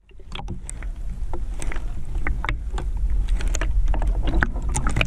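Underwater camera sound: a deep, muffled rumble of water moving around the camera, with many scattered sharp clicks and pops of bubbles and water against the housing, loudest about three to four seconds in.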